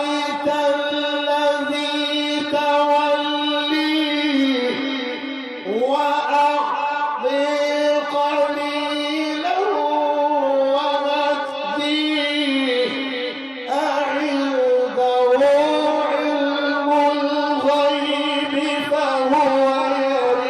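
A male Quran reciter's voice in long, held melismatic phrases of mujawwad-style tajweed, ornamented with glides between notes, with brief breaths between phrases.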